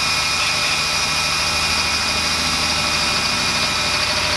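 Power drill running steadily, its twist bit boring a hole into the Nissan Pathfinder's front guard through a paper snorkel template.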